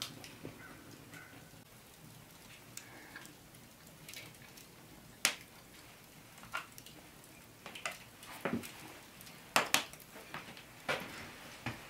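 Wood fire crackling in an open hearth: a low, steady hiss with scattered sharp pops and clicks. A few louder clicks near the end come as cupcakes are handled on a plate.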